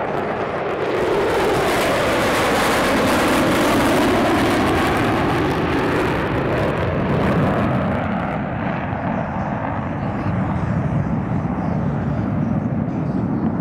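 Four F-16 Fighting Falcon jets flying over in formation on afterburner: a loud jet roar whose pitch sweeps down as they pass. About eight seconds in it dulls to a lower rumble as they fly away.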